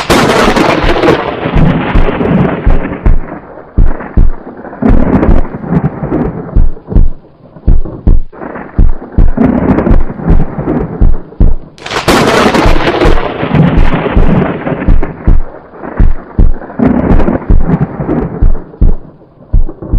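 Thunder sound effect: two loud cracks about twelve seconds apart, each trailing off in a long rumble broken by many low thumps.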